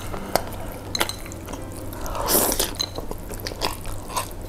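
A person eating saucy mie ayam chicken noodles close to the microphone: a couple of light clicks, likely chopsticks against the bowl, then a wet slurp of noodles about two seconds in.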